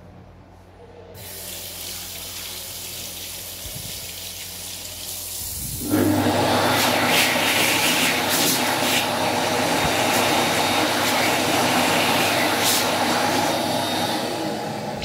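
Push-button tap running water into a basin from about a second in. About six seconds in, an AIKE-built ATC hand dryer starts suddenly and blows loudly and steadily, tailing off near the end as it runs down.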